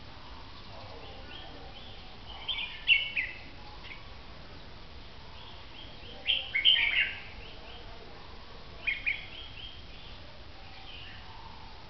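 Red-whiskered bulbul singing short bursts of song three times: about two and a half seconds in, around six seconds in, and near nine seconds in.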